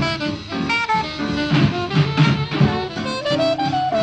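Background music in a jazz style: a melody line over a steady beat.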